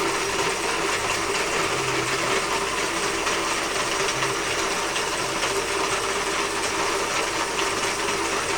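Robot arm's turret drive, an electric motor and gearing, running steadily as the turret rotates.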